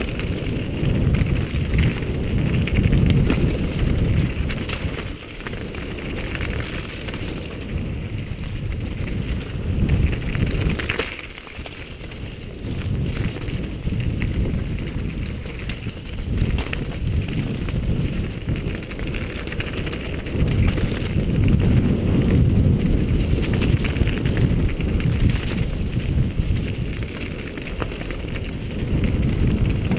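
Wind buffeting a helmet-mounted camera's microphone and mountain bike tyres rolling fast over a loose dirt and root forest trail, with scattered knocks and rattles from the bike over bumps. The noise eases briefly about eleven seconds in, then builds again.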